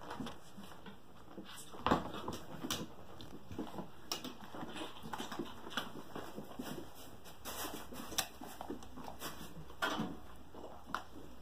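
Two puppies playing and scuffling on a floor: an irregular patter of paws and claws with small knocks, the loudest about two seconds in and again near the end.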